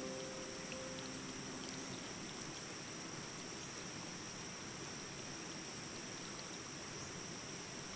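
The last notes of soft background music die away in the first second. A steady high-pitched hiss and whine of constant background noise follows.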